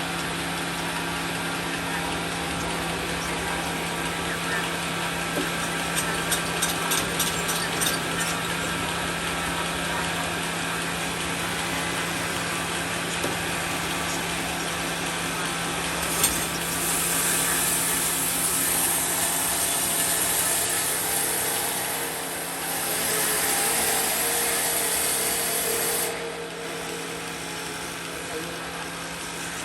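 Sawmill machinery running with a steady hum, with a run of quick clicks about a quarter of the way in. About halfway through, a louder, hissing cutting sound sets in for about ten seconds, then falls back to the running hum.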